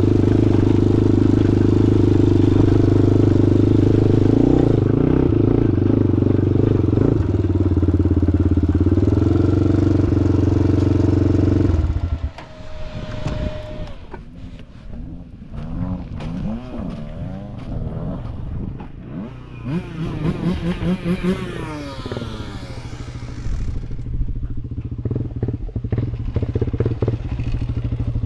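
Honda 400EX-based ATV engines, air-cooled four-stroke singles: one runs loud and steady at speed for about twelve seconds, then drops away abruptly. After that, quieter engines rise and fall in pitch as they rev, and a steady low idle sets in near the end.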